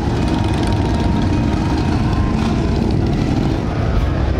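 Motorcycle traffic on a street: several engines running and passing by, a steady low rumble.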